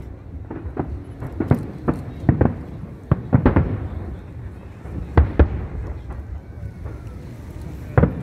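Aerial fireworks shells bursting: a string of sharp booms at irregular intervals, several close together in quick pairs.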